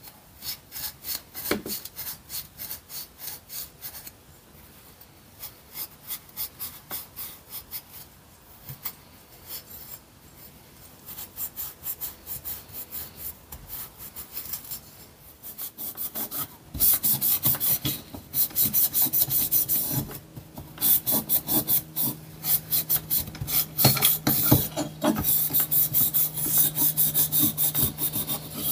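Grey abrasive pad scrubbing die-cast metal model parts in quick back-and-forth strokes, several a second, scuffing the bare metal ready for undercoat; the rubbing gets much louder about halfway through.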